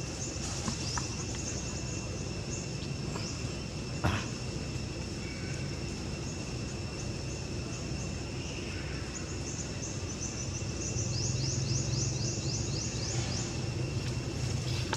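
Outdoor ambience: a steady high-pitched buzzing drone, a quick run of short falling chirps about eleven seconds in, and a low rumble that grows louder near the end. There is one sharp click about four seconds in.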